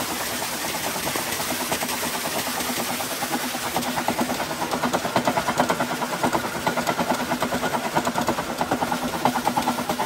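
A belt-driven rig of electric motor, heavy flywheel pulleys and alternator running, together with an electric water pump whose outlet gushes water. A steady rushing noise with a hum at first; from about four seconds in, a fast, even rhythmic beat of several pulses a second joins it.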